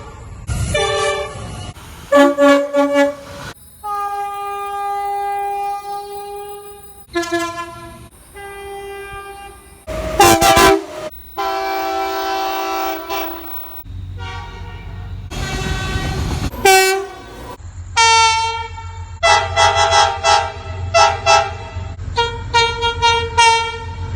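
Train horns sounding in a run of clips cut one after another. Each horn is a chord of several notes: some are long blasts held for a few seconds, and others are short repeated toots. A low rumble sits under the horns in the second half, with a quick string of short blasts near the end.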